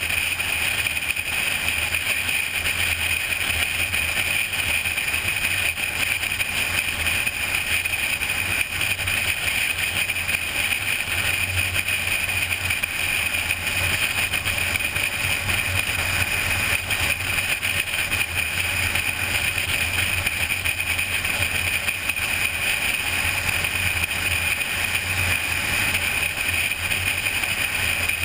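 Steady wind and tyre noise of a car cruising at highway speed, picked up by a GoPro mounted at the car's hood: an unbroken rushing noise with a low hum beneath it.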